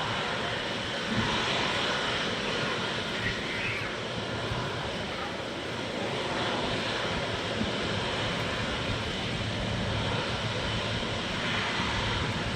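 Boeing 777-200 jet airliner's engines, a steady even rush of noise that holds without sudden changes.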